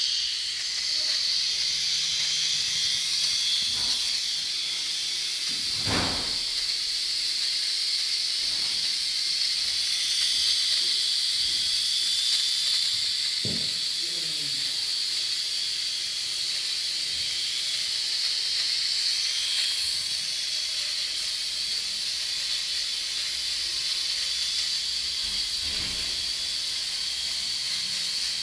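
STORM 4 micro RC helicopter's small electric motors and rotors running steadily in flight, a constant high-pitched whine and hiss, with a few short knocks along the way.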